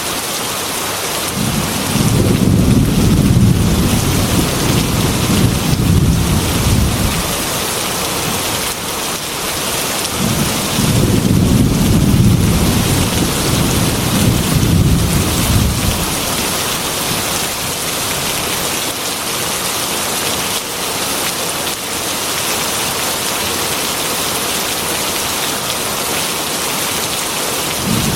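Heavy rain pouring steadily on a metal roof, with thunder rumbling deep and long twice, a few seconds apart, and a third rumble starting near the end.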